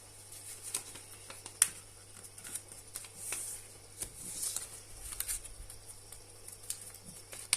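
A sheet of A4 paper being folded and creased by hand: soft rustling with scattered sharp crisp clicks, the loudest about one and a half seconds in.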